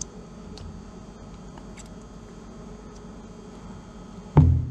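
Small handling noises and a few light clicks as glucose syrup is pressed by hand into a stainless steel mixing bowl on a kitchen scale, then a sudden loud low thud near the end.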